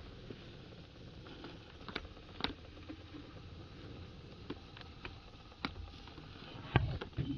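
Faint outdoor background with a few scattered light clicks and knocks from a handheld camera being handled and panned. The loudest is a dull thump near the end.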